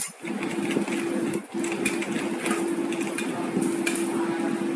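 Metal spatulas tapping and scraping on a teppanyaki griddle while the chef handles an egg, over a steady low hum that drops out briefly twice.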